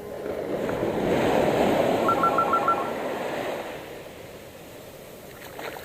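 A sea wave breaking and washing up the beach, swelling about half a second in and fading away over the next few seconds. A short run of quick electronic beeps sounds in the middle.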